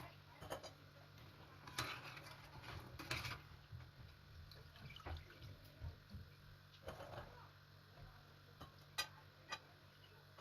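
Faint scattered clicks and taps of kitchen utensils and dishes being handled, a few sharper ones standing out, over a low steady hum.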